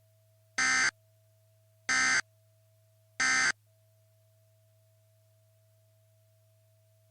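Emergency Alert System data tones: three short, harsh digital bursts about 1.3 seconds apart, the pattern of the end-of-message signal, over a faint steady hum that continues after them.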